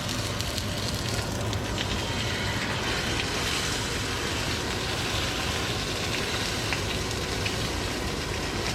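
Rainbow trout fillets sizzling in hot oil in a cast-iron skillet as they sear skin-side down: a steady sizzle with small scattered crackles and pops.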